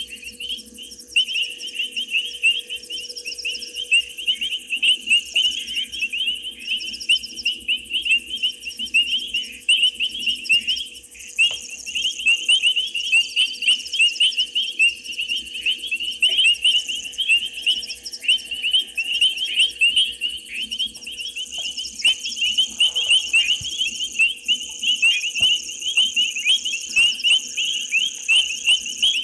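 Night chorus of frogs: dense, high-pitched whistling calls, many a second, overlapping without a break. Insects trill steadily higher up, over a faint low hum.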